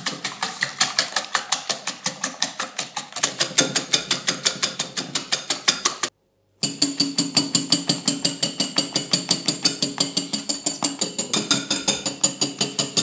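Wire balloon whisk beating egg whites by hand in a ceramic bowl: a fast, even clatter of the wires striking the bowl, about five strokes a second. The whites are being whipped into stiff peaks. The strokes stop briefly about six seconds in, then carry on with a steady ringing under them.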